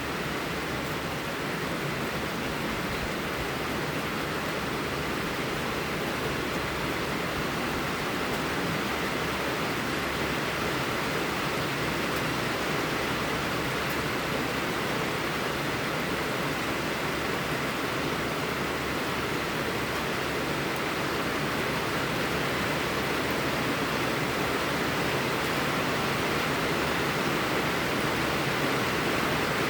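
Steady, even rush of blizzard wind, growing slightly louder toward the end.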